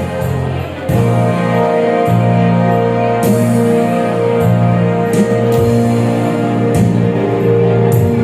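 Music from a choir performance: sustained chords over a bass line that steps to a new note every second or so, with short, bright high strikes every one to two seconds.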